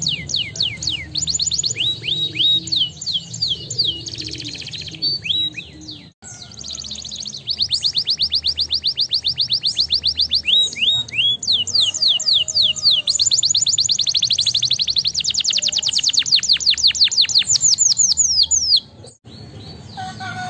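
Domestic canary singing: rolling trills of rapidly repeated descending notes, in the long middle passages about a dozen notes a second, broken by two short pauses about six and nineteen seconds in.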